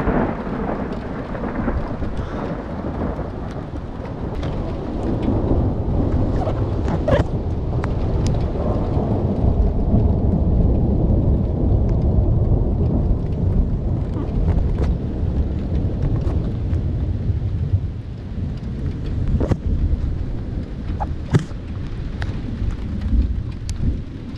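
Thunder rumbling on at length in a thunderstorm, loudest about ten seconds in, over steady rain, with scattered drops ticking sharply on a nearby surface.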